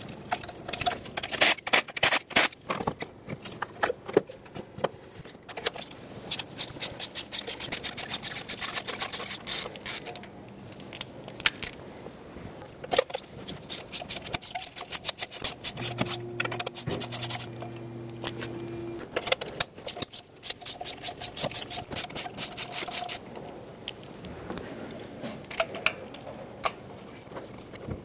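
Hand ratchet clicking in quick runs of ticks, several times over, as ignition-coil bolts and spark plugs are turned on a four-cylinder engine. Between the runs, gloved hands handle plastic connectors and metal parts.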